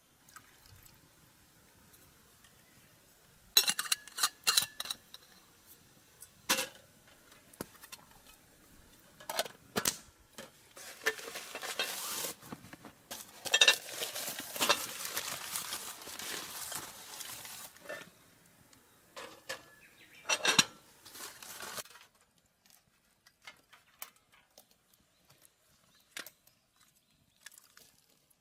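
Cookware and utensils clinking and knocking, with a longer stretch of scraping in the middle, then only faint ticks.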